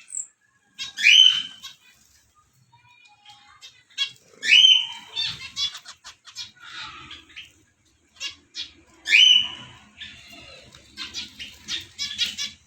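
Small songbird calling: three loud harsh calls, each rising quickly and then holding, about four seconds apart, with fast clicking chatter between them that thickens near the end.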